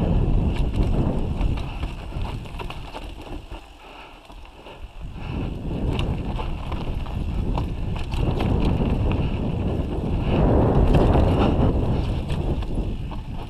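Mountain bike descending a dirt and stony trail: wind noise on the microphone and tyres rolling over the ground, with short rattles and clicks from the bike. It grows quieter for a second or two about four seconds in, then picks up again.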